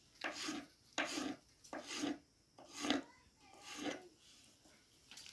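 Kitchen knife slicing through a raw potato onto a wooden chopping board: five short cutting strokes, about one a second.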